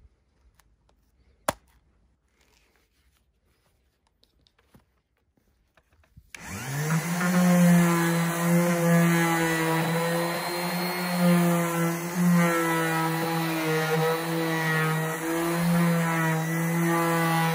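A Worx orbital sander switched on about six seconds in, its motor spinning up and then running steadily as it sands a wooden panel with 240-grit paper, the final, finest pass. Before it starts, one sharp click.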